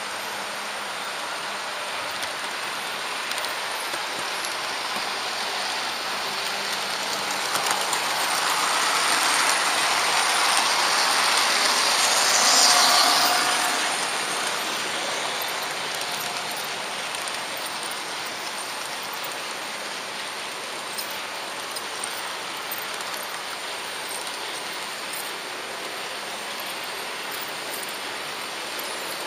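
Steady running noise of an H0-scale model train carrying the camera: wheels rolling and ticking over the track, swelling for a few seconds about halfway through and then easing back.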